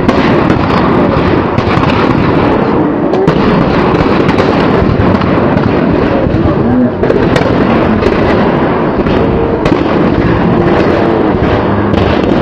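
Firecrackers going off in a dense, continuous crackle of sharp snaps, with faint shouting voices underneath.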